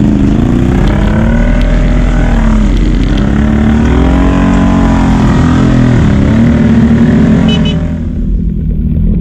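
ATV engine revving under way, its pitch rising and falling repeatedly with the throttle. It eases off about eight seconds in.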